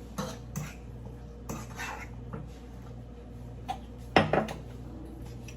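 Spoon stirring seasoned chicken in a cooking pot, scraping and clinking against the pot, with a louder cluster of knocks about four seconds in.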